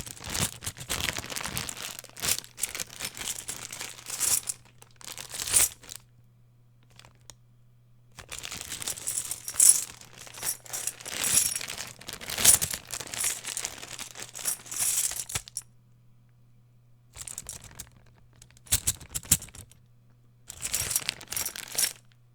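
Coins jingling and clinking inside a bag as it is shaken and handled, in several bursts separated by short pauses.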